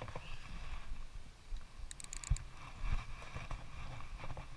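Low, uneven rumble of wind and handling noise on a chest-mounted action camera's microphone, with a quick run of sharp clicks about two seconds in and a single thump just after.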